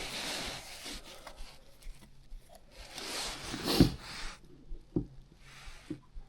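Rustling and rubbing of parts being handled, in two bursts, with a sharp knock just before the four-second mark and a couple of softer thumps after it.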